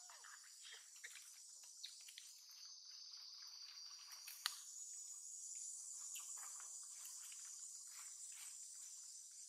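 Faint, steady chorus of insects chirring high up, with scattered soft clicks and one sharper click about four and a half seconds in.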